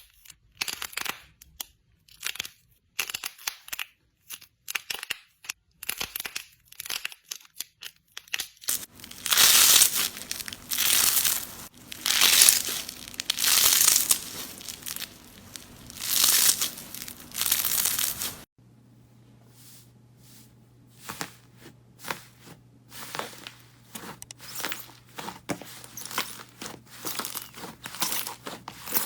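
Slime being worked by hand: quick sticky crackles and pops, then a stretch of louder, drawn-out crinkling squelches coming every second or two, then crackles again over a low steady hum.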